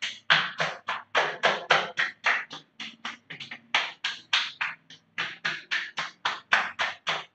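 Open palms slapping a bare chest and shoulders in a quick, steady rhythm of about three to four slaps a second. This is a self-tapping exercise meant to stir the circulation.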